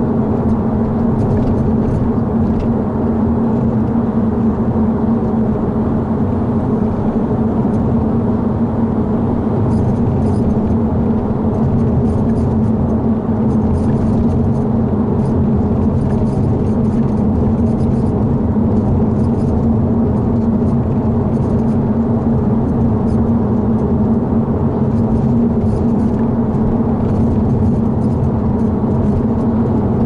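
Steady road and engine noise inside a Scion tC at freeway speed. From about ten seconds in, short, irregular high-pitched squeaks come from the cowl area at the bottom of a newly replaced windshield, noticeable on rough road.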